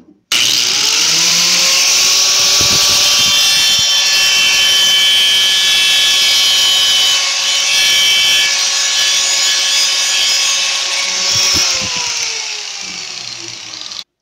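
Angle grinder cutting through a steel bar of an old window grille: the motor's whine spins up sharply and holds a steady pitch over the hiss of the disc on metal. About twelve seconds in it is let off and the whine falls as the disc spins down.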